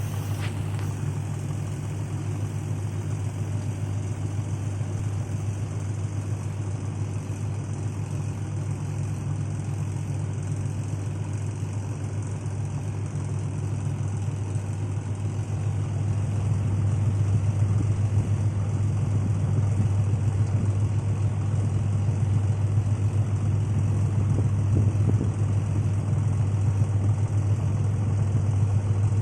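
Washing machine spinning at high speed on its spin cycle, a steady low motor-and-drum hum that grows a little louder about halfway through.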